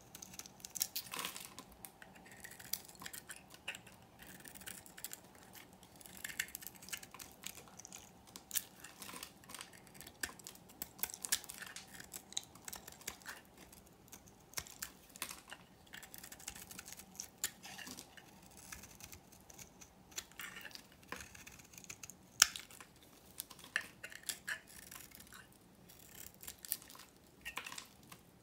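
Small knife blade shaving thin curls off a bar of dry, vintage soap painted green: crisp, crackling scrapes stroke after stroke, in clusters with short pauses, and one sharp click about two-thirds through.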